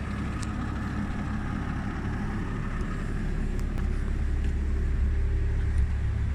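Toyota 1HD 4.2 L turbo diesel idling, a steady low rumble with a faint higher whine, heard from inside the camper's cabin.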